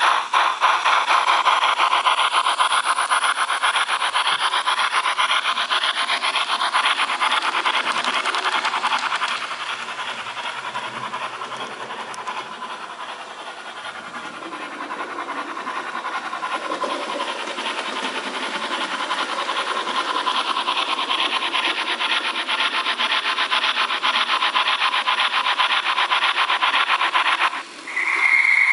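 Fleischmann BR 55 H0-scale model steam locomotive running past with a fast, rasping rhythmic sound, which grows fainter in the middle as the locomotive moves away and louder again as it comes back. Near the end the sound cuts out for a moment and a steady high tone begins.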